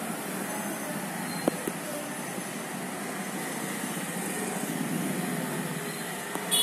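Steady rumble of road traffic from the street, with a single sharp click about a second and a half in and a short high screech at the very end.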